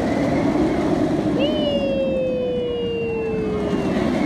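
A steel roller coaster train running along its track: a steady rushing rumble, with a long, slowly falling whine that sets in about a second and a half in and fades near the end.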